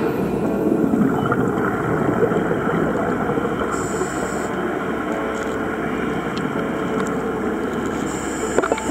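A boat engine running steadily, heard with wind and water noise.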